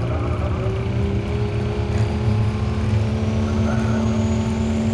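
Cummins diesel engine of a Dodge pulling pickup running hard at a steady speed while staged on the sled, with a deep rumble and a high whistle that climbs slowly in pitch from about two seconds in.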